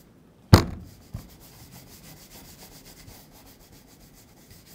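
Boar-bristle brush scrubbing dark brown cream into the midsole edge of a Tricker's Stow leather boot in quick, even strokes. A sharp knock about half a second in, the loudest sound, and a lighter click just after.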